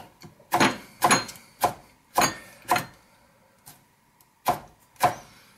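Kitchen knife slicing a red pepper into strips on a chopping board, each cut ending in a sharp knock on the board: five cuts about every half second, a pause, then two more near the end.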